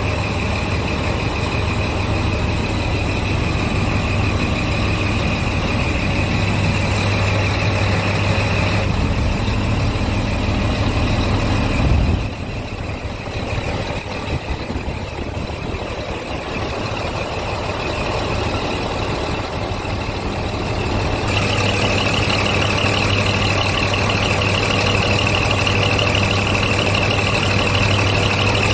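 Scania P truck's diesel engine running steadily at idle. A short knock comes about twelve seconds in, after which the engine sounds quieter for a while, then louder again from about twenty-one seconds on.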